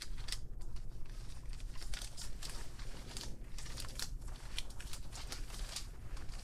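Small paper slips rustling and crinkling as they are handled and folded, in many short irregular crackles over a low steady hum.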